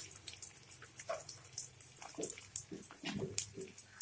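Chopped onions frying in hot mustard oil in a kadai, with a light sizzle and scattered small crackles. A few short low sounds come through about two and three seconds in.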